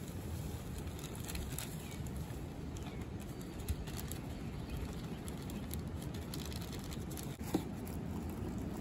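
Dry used coffee grounds pouring from a plastic bag into the plastic gravity-feed hopper of a sandblasting gun: faint pattering and bag rustling over a steady low rumble, with a single knock near the end.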